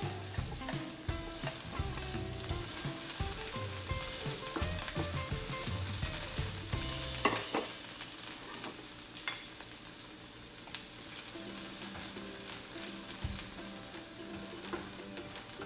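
Diced onions sizzling in hot oil in a nonstick frying pan as a spatula scrapes them off a plate into the pan, with a steady crackling hiss. A single sharp knock comes about seven seconds in.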